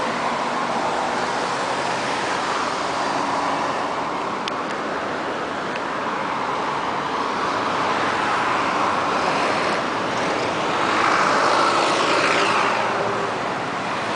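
Steady road traffic noise, swelling for a couple of seconds about eleven seconds in.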